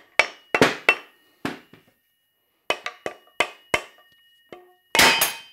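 A hammer striking the steel housing on a Porsche 356 swing-axle tube about ten times in uneven groups, driving the loosened housing off the tube; the metal rings briefly after the blows. Near the end comes a longer, louder metallic clatter.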